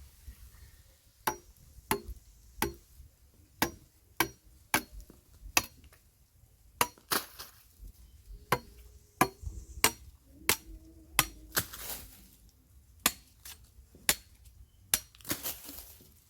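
Sugar cane being chopped into pieces with a blade: about twenty sharp chops, irregularly spaced at roughly one to two a second, some with a short ringing knock.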